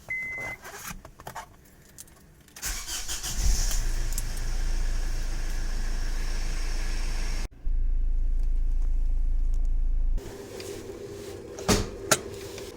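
Short beep and clicks, then the 2005 Honda Accord's 2.2 i-CTDi diesel engine starting and running. The sound cuts off abruptly and resumes partway through, then drops quieter with a couple of sharp knocks near the end.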